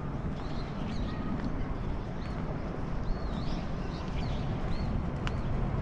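Small birds chirping, a string of short arching high calls over a steady low rumble, with one sharp click about five seconds in.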